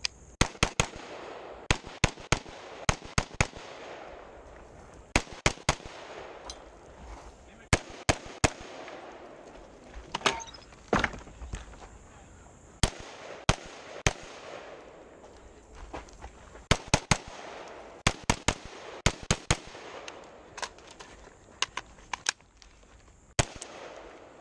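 Rapid gunfire from an AR-style semi-automatic rifle: sharp shots fired in quick pairs and triples, each group separated by a pause of a second or two, through a timed string.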